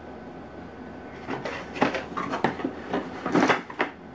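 Cardboard packaging insert being pulled up and out of a cardboard box: a quick run of scraping, rustling knocks, starting after about a second of quiet.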